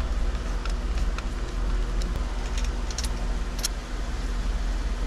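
A few faint, scattered clicks as a screwdriver turns screws through a steering-column turn signal switch into its plate, over a steady low background hum.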